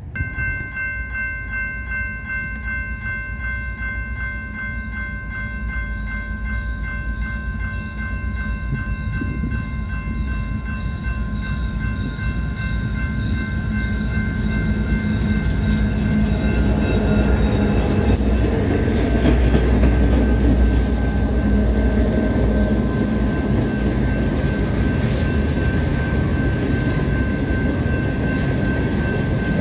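Railroad grade-crossing bells ringing in a fast, even rhythm while a diesel-hauled freight train approaches and rolls through the crossing. The rumble of the locomotive and the passing cars grows steadily louder and is strongest a little past the middle.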